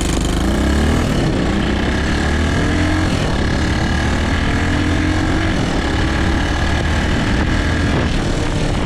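Suzuki DR200's single-cylinder four-stroke engine pulling hard under acceleration on a freshly rebuilt top end, its note rising over the first few seconds and then holding steady, with wind rushing over the microphone.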